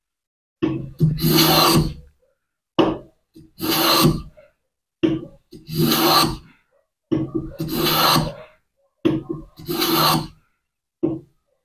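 Lie-Nielsen No. 5 jack plane cutting across the end grain of walnut: five strokes about two seconds apart, each a short knock followed by about a second of cutting. The blade is taking a continuous, very thin shaving from the end grain.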